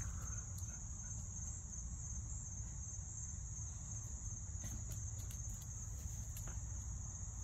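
Crickets trilling in a steady, unbroken high-pitched chorus, with a few faint clicks over a low background rumble.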